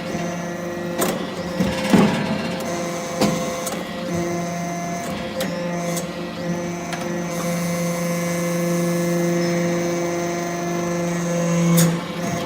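Aluminium chip briquetting press running: a steady machine hum with sharp clicks and clanks every second or few, the loudest about two seconds in.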